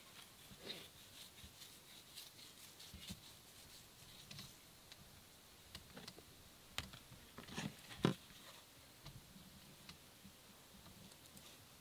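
Faint handling sounds at a cooking table: scattered light clicks, taps and scrapes, with one sharper knock about eight seconds in, as a wooden cutting board is picked up and brought over the meat.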